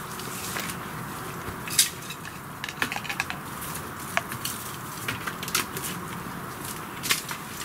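Sticks and twigs clicking, knocking and cracking as branches are handled, in scattered irregular clicks with one sharp crack about two seconds in.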